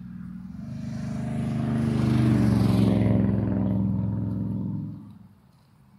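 A motor vehicle driving past close by: engine hum and tyre noise build over about two seconds, then fall away quickly about five seconds in.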